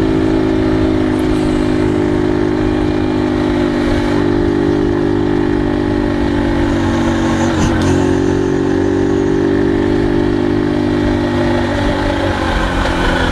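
150 cc motorcycle engine running at a steady speed under way, with a brief dip in engine pitch about eight seconds in. It is 'roncando' (rumbling) in second gear, which the rider takes as a sign that the engine is wearing and will soon need work.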